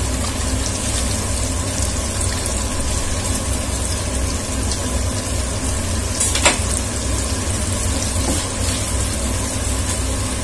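Paneer cubes frying in melted butter in a pan, a steady sizzle, over a low steady hum. One sharp click about six and a half seconds in.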